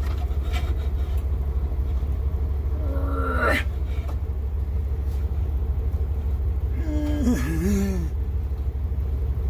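A steady low rumble throughout, with two short strained vocal groans, about three and seven seconds in, from a man straining to cut through a tough tomahawk-steak bone.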